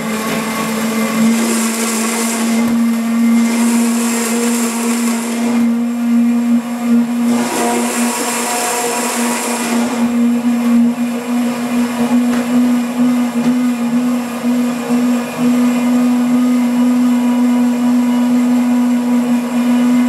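3-horsepower Omni blender running inside its closed sound-enclosure shield, blending carrots and water. It steps up to a higher speed right at the start and then holds a steady motor hum of constant pitch. Stretches of louder rushing noise come and go during the first half.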